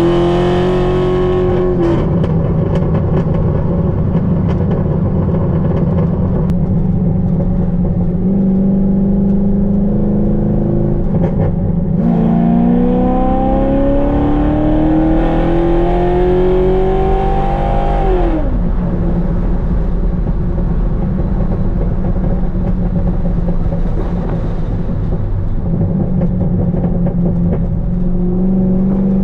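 Chevrolet Corvette C5's 5.7-litre V8 with a Corsa exhaust, driving under way. The revs climb and fall back near the start and run steady. They then climb again for about six seconds from roughly twelve seconds in and drop sharply at about eighteen seconds, settling to a steady cruise.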